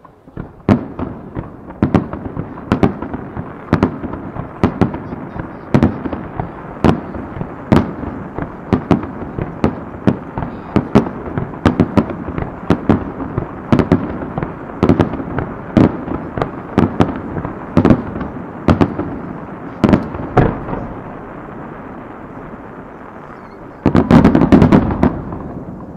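Aerial firework shells bursting in rapid succession, a sharp bang roughly twice a second with a rolling rumble between them. After a few seconds of lower rumble, a dense cluster of loud bangs comes near the end as several shells burst together.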